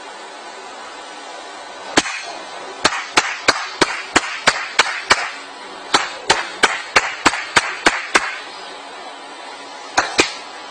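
An HTC smartphone used as a hammer, knocking nails into a strip of wood. There is one sharp strike about two seconds in, then two runs of about eight strikes at roughly three a second, and two quick strikes near the end.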